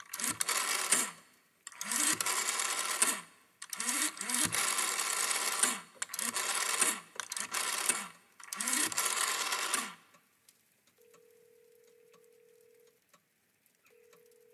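Rotary telephone being dialled: seven turns of the dial, each whirring back for a different length. Then a faint ringing tone on the line, sounding twice.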